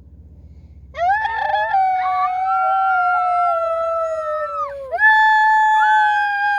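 Dogs howling together in long, drawn-out howls that start about a second in. The first howl slides down and breaks off near five seconds, and the next rises straight in and is held.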